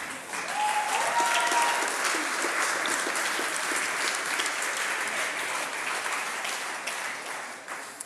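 Audience applauding at the close of a talk. The clapping swells about half a second in, holds, and fades near the end.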